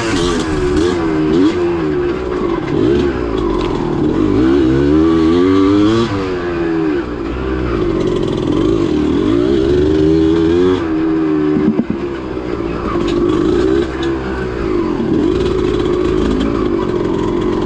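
Yamaha DT 180's two-stroke single-cylinder engine revving up and down while the dirt bike is ridden, heard from the rider's seat, its pitch rising and falling over and over with the throttle.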